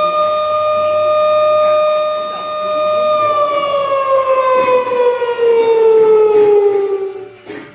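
Outdoor tornado warning siren wailing on one steady pitch, then winding down: from about three seconds in its pitch falls slowly until it fades out near the end.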